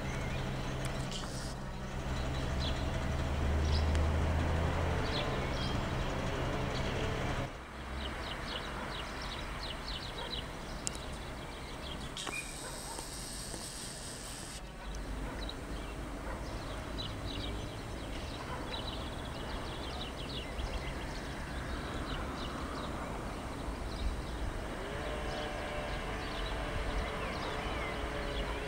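ČD class 754 diesel locomotive's six-cylinder diesel engine working under load as it approaches, a deep, steady drone that is loudest about 4 s in. After an abrupt cut about 7 s in, the locomotive drawing in is quieter, with birds chirping, and near the end a steady pitched whine rises in.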